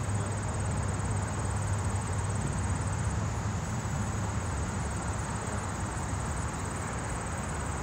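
Steady outdoor ambience: insects trilling continuously at a high pitch over a low, steady rumble.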